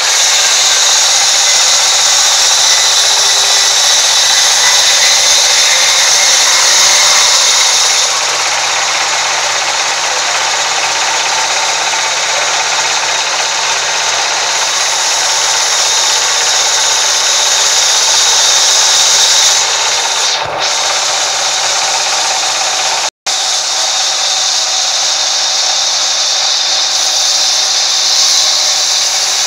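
Vertical band saw mill running steadily while its blade rips lengthwise through a log, a loud, steady high-pitched hiss. It cuts out for an instant about three-quarters of the way through.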